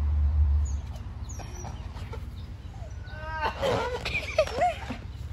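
A person laughing in short, bending bursts about three seconds in. Under it is a low rumble in the first second.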